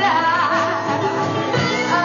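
Live rock band playing, with a woman singing over electric guitars.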